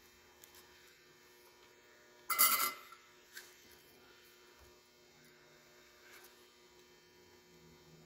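A faint steady electrical hum, broken about two and a half seconds in by one brief, loud rustle, with a small click about a second later.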